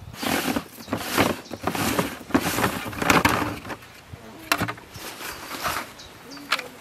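A plastic canoe barrel being opened and unpacked: a quick run of loud scraping and rustling strokes for the first three and a half seconds as the lid is worked off, then quieter rummaging with a few sharp clicks.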